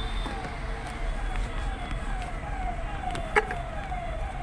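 An electronic siren-like tone repeating, each one a short falling pitch, about three times a second, over a low rumble. A single sharp click about three and a half seconds in.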